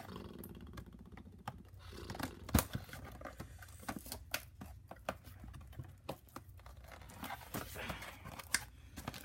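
Cardboard box and plastic packaging being handled and pulled open: scattered clicks, rustles and crinkles, with one sharper snap about two and a half seconds in.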